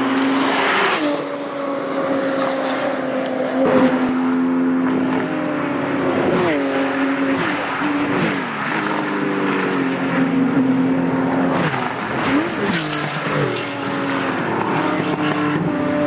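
Porsche 911 race and track cars passing at full throttle, their flat-six engines running at high revs. The pitch drops sharply several times as they shift up.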